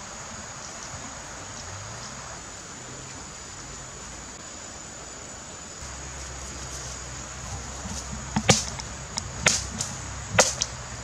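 Steady high buzzing of forest insects. Near the end, three sharp crackling rustles about a second apart as a person moves through dry leaf litter and brush close by.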